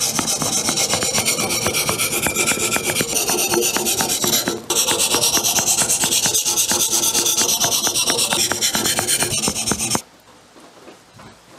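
Handheld whetstone scraped rapidly back and forth along the wetted steel blade of a Korean sickle (nat), sharpening the edge. The strokes are fast and even, pause briefly about halfway through, and stop suddenly about ten seconds in.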